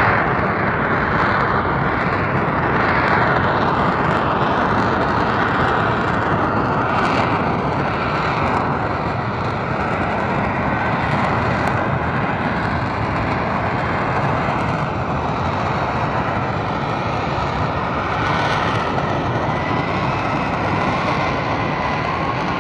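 F-35 Lightning II fighter jet's F135 turbofan engine running at a distance as a steady, loud rushing jet noise, loudest at the start and easing slightly afterwards.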